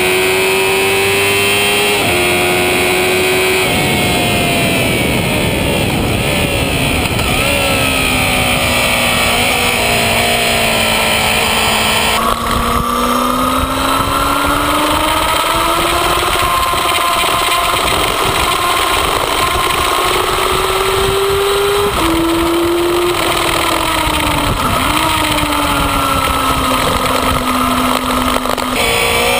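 A Yamaha FZ6's 600 cc inline-four engine heard from on board at track speed, revs climbing and falling, with sudden drops at gear changes. Heavy wind rush runs under it.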